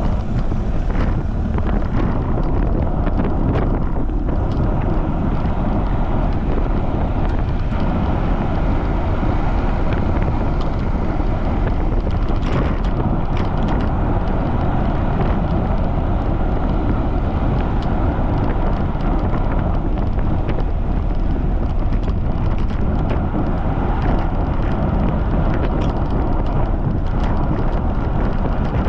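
Wind buffeting the microphone of a bicycle-mounted camera on a fast ride in strong wind: a loud, steady rush, heaviest in the low end, with faint ticks now and then.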